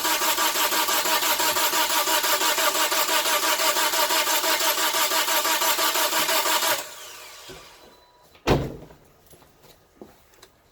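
2009 Toyota Corolla four-cylinder engine cranking on the starter without starting, with an even beat of about five compression pulses a second, during a relative compression test for suspected low compression. The cranking cuts off abruptly a little before two-thirds of the way in, and a single sharp knock follows near the end.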